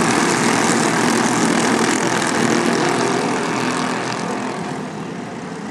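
Racing kart engines running hard at race speed, a dense high-revving mechanical sound that eases off in level about four seconds in.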